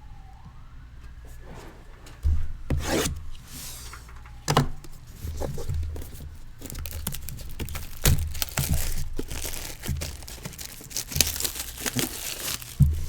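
Plastic shrink wrap being torn off a sealed trading-card box, with irregular sharp rips and crinkling handling noise.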